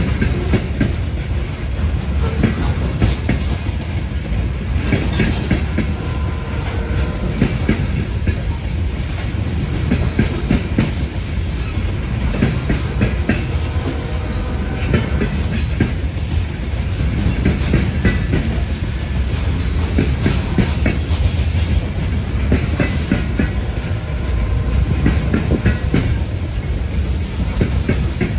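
Loaded coal train's hopper cars rolling past at close range: a steady rumble with the wheels clicking and clacking over the rail joints.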